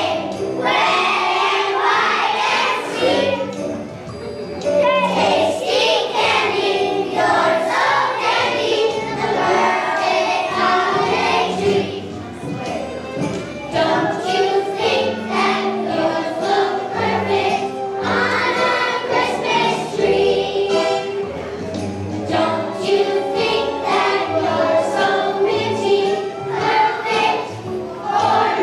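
Young children's choir singing a Christmas song together over a musical accompaniment with jingle bells keeping a steady beat.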